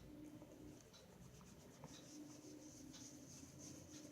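Faint scratching and rubbing on a card as it is being wetted, with soft scattered ticks over a low steady room hum.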